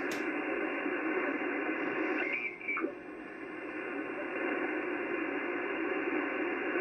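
Ham radio transceiver's speaker hissing with 80-metre band noise as the receiver is tuned by hand. About two seconds in, the hiss dips briefly and a short whistle sounds as the tuning passes a signal.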